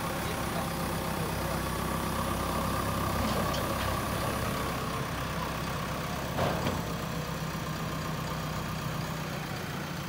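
JCB 3DX backhoe loader's diesel engine running steadily as its front loader arm lifts a concrete mixer. One sharp knock about six and a half seconds in.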